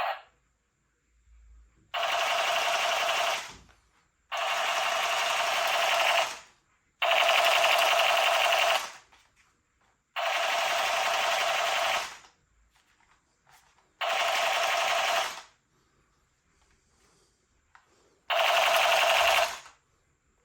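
Battery-powered toy blaster firing six full-auto bursts, each a fast, even rattle of the motor-driven mechanism lasting about one and a half to two seconds, with short pauses between.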